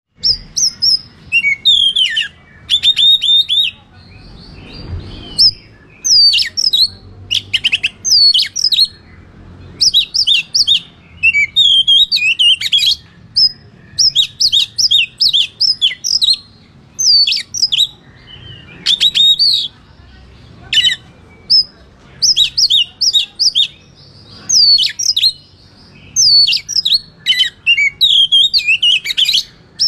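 Oriental magpie-robin (kacer) singing loudly in its full fighting song: rapid, varied phrases of sharp whistles, quick repeated-note runs and trills, with brief pauses between bursts.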